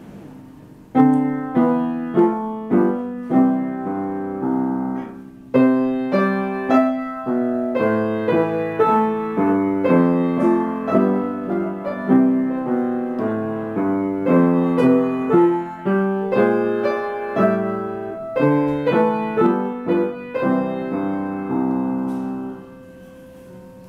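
Piano duet played four hands, a child and a teacher on one piano, a simple beginner's piece at an even pace. The playing starts about a second in, breaks off briefly around five seconds, and stops shortly before the end.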